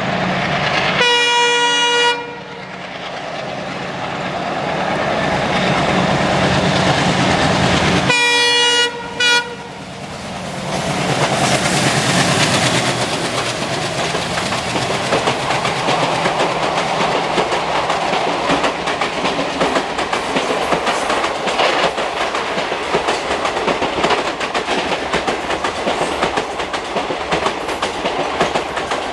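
ALCO diesel locomotive sounding its horn: one blast about a second in, then a second blast around eight seconds in, followed by a short toot, over the engine chugging. From about ten seconds on there is a steady rumble and clickety-clack of the train's coaches running over the rails.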